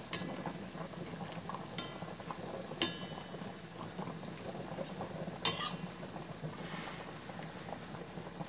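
Sauce simmering in a stainless steel pot, bubbling steadily, while a metal ladle spoons it over a whole chicken and clinks against the pot a few times. The loudest clinks, each ringing briefly, come about 3 and 5½ seconds in.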